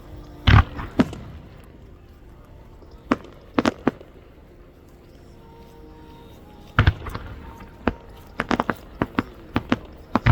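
Aerial firework shells bursting: a series of sharp booms and bangs at irregular intervals, a loud one about half a second in and another near seven seconds, then a quicker run of pops toward the end.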